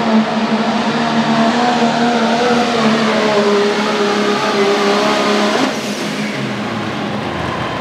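Dodge Ram diesel pickup engine running hard at full throttle under the load of a pulling sled. About five and a half seconds in the engine note drops sharply and the sound gets quieter as the throttle is let off at the end of the pull.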